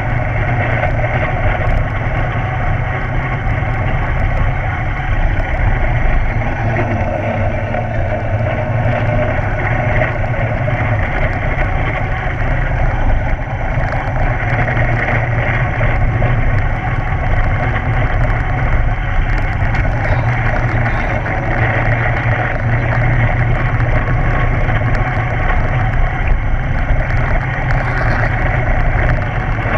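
Small go-kart engine running steadily close by, with no clear revving up or down.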